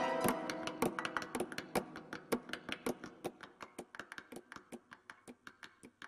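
Qanun ensemble playing: a run of quick plucked notes, about five a second, growing steadily quieter.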